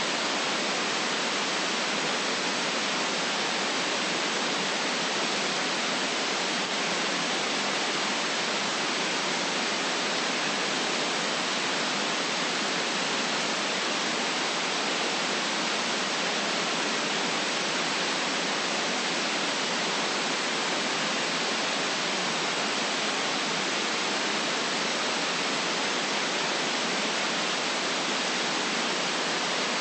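Generated white noise: an even, unchanging hiss with little bass.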